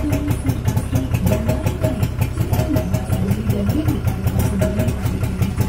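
Daihatsu Hijet engine idling loudly through twin aftermarket F1ZR-style exhausts, a rapid, even exhaust beat.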